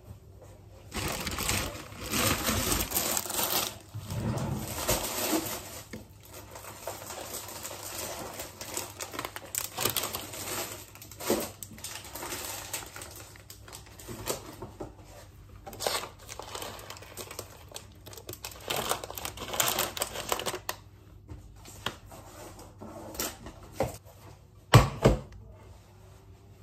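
Objects being handled at close range: irregular bursts of rustling with scattered clicks and taps, and one sharp knock near the end.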